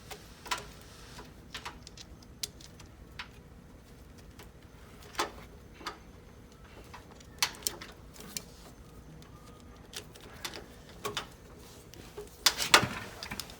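Scattered light clicks and taps of hand work on a car's wiring harness, parts and tool knocking against each other, with a short cluster of louder knocks near the end.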